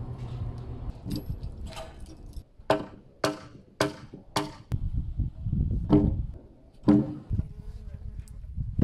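Hard wooden knocks on heavy timber log beams being set onto the foundation: four about half a second apart, then two louder ones a little later, each with a short hollow ring, over a low rumble.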